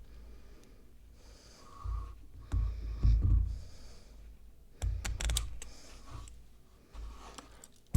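Handcuffs being worked with a shim: small metal clicks and rattles with dull handling thumps, loudest about three seconds in and again around five seconds in.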